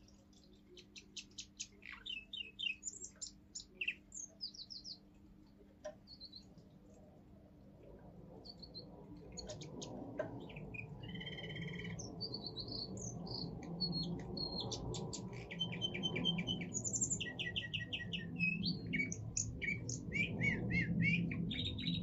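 Young male Russian song canary singing its forest-tune song: fast trills and rapid runs of repeated high notes, a burst of song, a few seconds of scattered notes, then continuous song again from about nine seconds in. A low rumbling noise rises underneath in the second half.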